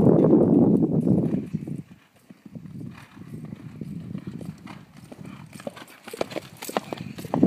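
Hoofbeats of a ridden horse on a dirt round pen. A louder rushing noise fills the first second and a half, then the hoofbeats go on more faintly, with a cluster of sharper thuds near the end.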